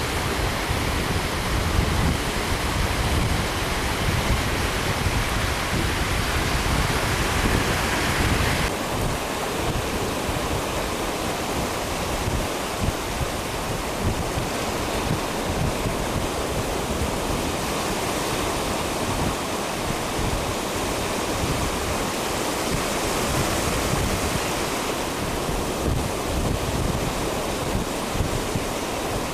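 Surf breaking and washing up the beach as the tide comes in, with gusty wind buffeting the microphone. The higher hiss thins abruptly about nine seconds in.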